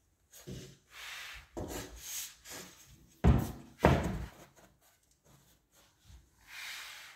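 Rubbing and scraping of a wooden skirting board being handled and set against the wall, with two solid thumps about half a second apart a little before the middle.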